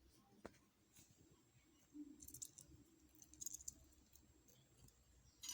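Near silence with a few faint, scattered clicks and crackles as a halved lime is squeezed by hand into a teacup.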